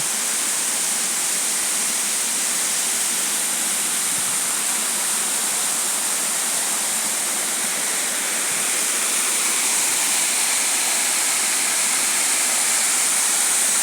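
Waterfall of about 30 metres plunging, a steady rushing hiss of falling water with no breaks.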